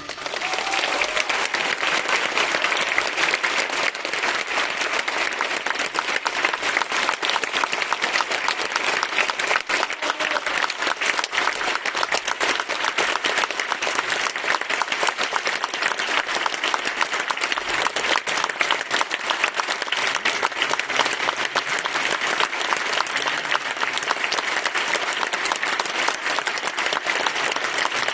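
Large audience applauding in a concert hall, a dense, steady clatter of clapping.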